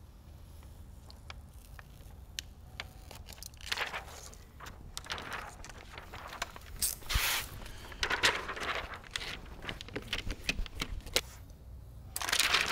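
Window tint film crinkling and rustling as it is handled, with scraping, coming in several rough bursts after a few seconds of small clicks.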